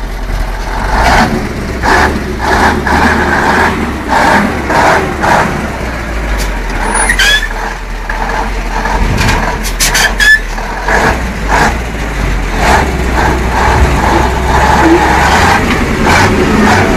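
Ural 4320 truck's diesel engine running slowly under load as the truck crawls through a deep trench of loose soil, with repeated sharp knocks and clatters from the chassis and wheels.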